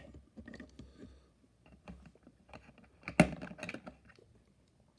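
Small clicks and clatter of diecast model cars being handled: faint scattered ticks, then a sharp click about three seconds in followed by a quick run of smaller clicks, as of a car being set down or its body closed.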